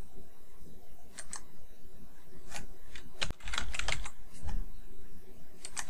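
Computer keyboard typing: scattered keystrokes, with a quick run of several about halfway through.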